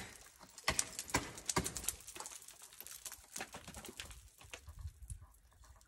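Irregular sharp knocks of ice-climbing tools and crampons striking ice, several strong hits in the first two seconds, then fainter, scattered ones.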